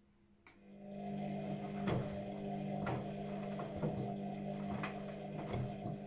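Luxor WM 1042 front-loading washing machine during its wash: after a click about half a second in, the drum motor starts and runs with a steady hum, and the wet laundry tumbling in the drum knocks about once a second.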